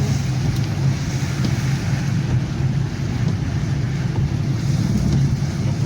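Steady road and engine noise from inside a moving car, with a constant low hum.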